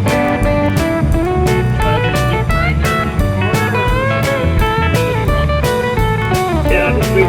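Blues music with electric and slide guitar over a steady drum beat.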